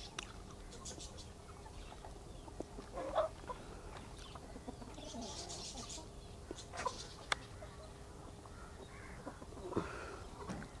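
Backyard chickens clucking and calling now and then, with a few short high chirps and a sharp click about seven seconds in.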